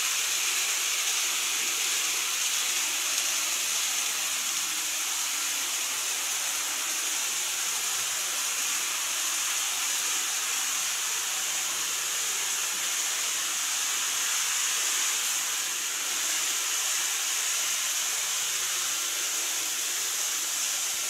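Steady hiss with a faint hum underneath: the running noise of KATO N-scale model trains on the layout's track.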